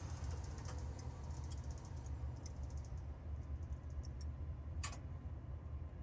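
Goodman package heat pump in its defrost cycle: a steady low hum from the unit with light ticking and crackling of ice on the outdoor coil, quick fine ticks early and one sharper crack near the five-second mark.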